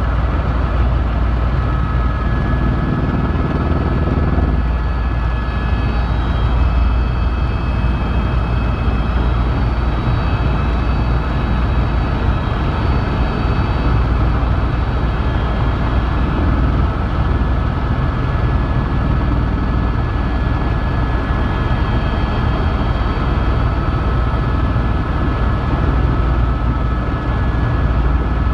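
Tour helicopter in cruising flight, heard from inside the cockpit: a loud, steady deep rumble of engine and rotors, with a thin steady whine on top.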